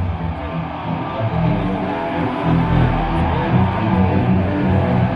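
Electric guitar played through an amplifier over a low bass line, a band's sound-check jam with notes running on without a break.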